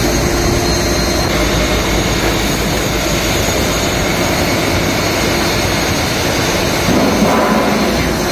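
Loud, steady engine drone. It swells briefly about seven seconds in.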